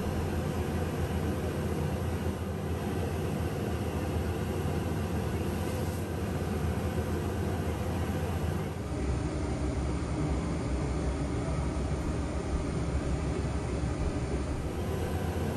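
Kitchen range hood exhaust fan running: a steady rushing drone with a low hum.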